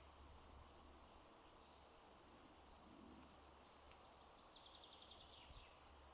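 Near silence in a conifer wood, with a faint steady low hum and a small bird's faint high, rapid trill about four and a half seconds in, after a few faint chirps near the start.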